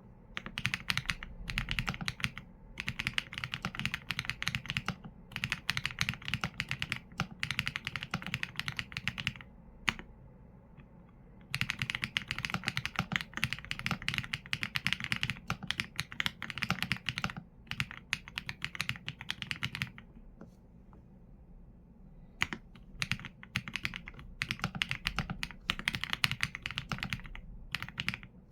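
Typing on a Qsenn A75 mechanical keyboard with Leobog Graywood V4 linear switches and PBT keycaps: dense runs of keystrokes with short pauses between words, and two longer breaks of a couple of seconds.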